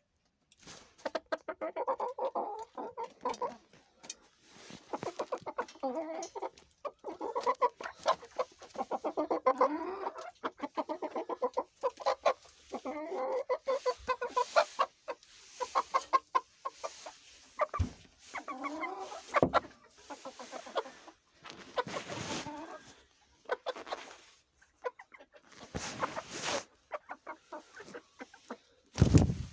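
Chickens clucking in runs of quick, repeated clucks, with a few sharp knocks and a louder thump near the end.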